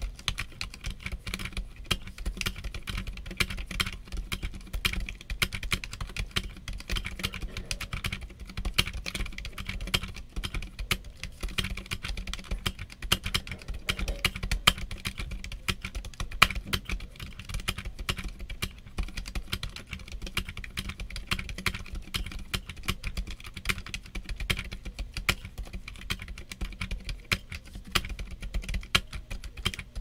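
Stock Redragon K530 Pro SE 60% keyboard with Silent Peach switches and double-shot PBT keycaps being typed on continuously, many keystrokes a second.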